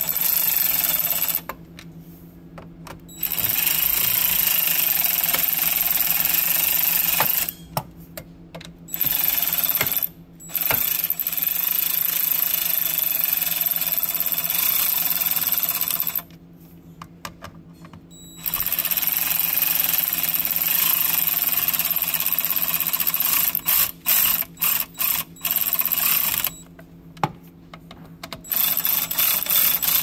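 Cordless ratchet running in several runs of a few seconds each with short pauses between, some quick stop-start pulses near the end, as it drives in the small 7 mm bolts that hold down a new fuse box.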